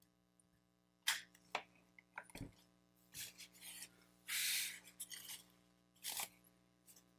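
Handling noises on a workbench: a few sharp clicks and taps from handling the battery pack and tools, and a short rustle of a paper towel a little past halfway.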